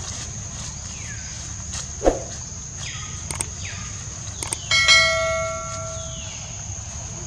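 A notification bell chime from a subscribe-button animation, struck once about five seconds in just after two clicks, ringing out over about a second and a half. Beneath it runs a steady high insect drone, with a few short falling chirps and a soft thump about two seconds in.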